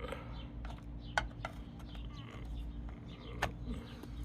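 Two sharp plastic clicks about two seconds apart, with a few smaller ticks between, as the cover caps over the door handle's 10 mm bolts are pried out. Birds chirp in the background.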